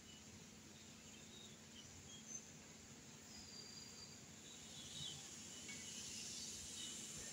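Near silence: faint background hiss with a few short, high chirps of distant birds.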